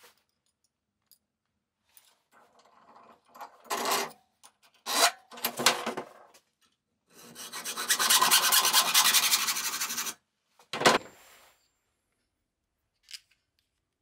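Hacksaw cutting a copper tube held in a vise: a few short strokes, then about three seconds of steady sawing. A brief sharp knock follows near the end.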